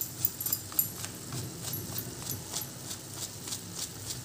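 Cardboard spice carton shaken and tapped over a frying pan as masala powder is poured in, giving light clicks about three a second over a low steady hum.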